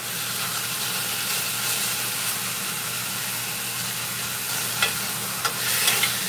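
Thin steaks frying in a hot cast-iron skillet, a steady sizzle with the heat turned up high. Near the end a utensil clicks against the pan a few times as the meat is turned.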